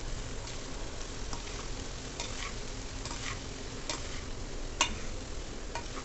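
A metal spoon stirring and tossing cooked rice and vegetables in a dark kadai, with scattered clicks and scrapes against the pan over a steady light sizzle. One sharper clack comes late on.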